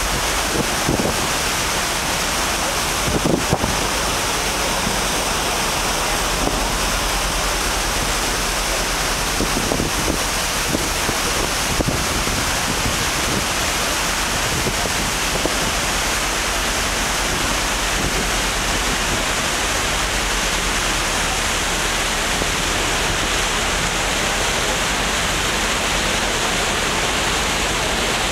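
Steady rushing of wind across the microphone and the ferry's wake churning on the sea surface, with a few brief low buffets of wind.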